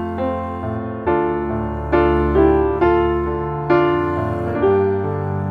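Background piano music: a slow melody of struck notes and chords, each ringing and fading, over held low notes.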